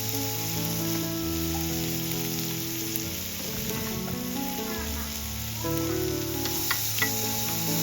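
Food sizzling in a hot pan, a steady frying hiss, with two sharp utensil clicks about seven seconds in. Background music with held melodic notes plays underneath.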